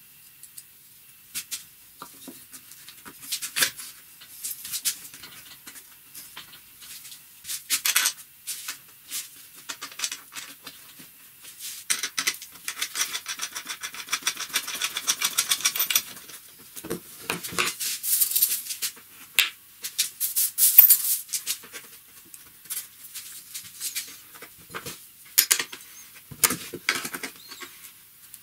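Hands handling wood and metal parts at a workbench: irregular clicks, taps and rubbing as a wooden block is set into a frame corner and a bolt is worked with a wrench, with a few seconds of rapid fine rasping near the middle.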